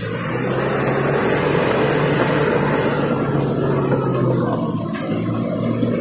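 Diesel engine of a small crawler bulldozer running steadily under load as the machine drives through soft mud.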